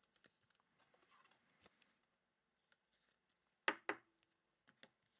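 Quiet handling of trading cards and their plastic packaging: faint rustling with a few light clicks, the loudest a quick pair about two-thirds of the way through and another near the end.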